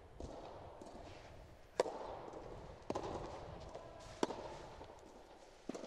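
Soft tennis serve and rally: rackets strike the rubber ball about four times, sharp pops a second or so apart, each ringing briefly under the court's roof.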